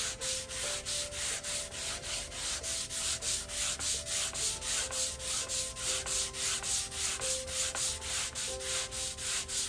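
Hand sanding block rubbed back and forth along the edge of a hardwood strip in quick, even strokes, about four a second, truing the edge so the strips close up without gaps.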